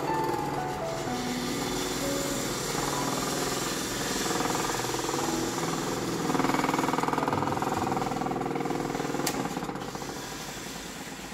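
Wood lathe turning a natural-edge wooden bowl, a gouge cutting the spinning blank with a rapid, rough chatter as the tool meets the uneven, interrupted rim. The cutting grows louder a little past the middle.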